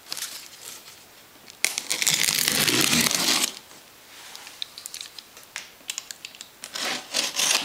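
Clear packing tape or plastic wrap on a cardboard parcel being torn and crinkled open, with a loud ripping noise lasting nearly two seconds starting about a second and a half in, a shorter rip near the end, and small crinkles and taps between.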